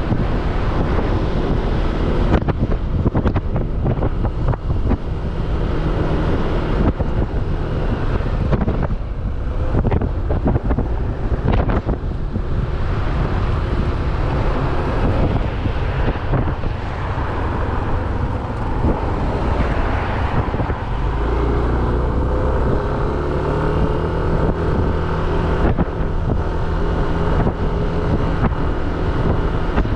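Wind buffeting the microphone on a moving motorbike, over the bike's engine running. A little past the middle the engine note comes through more clearly and rises slightly in pitch.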